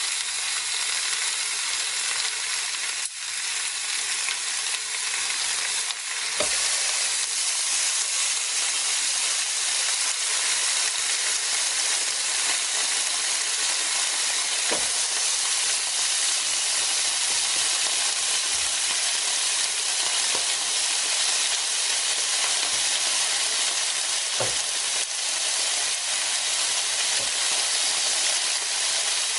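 Slices of pork sizzling steadily on a tabletop grill plate, with a few faint ticks here and there.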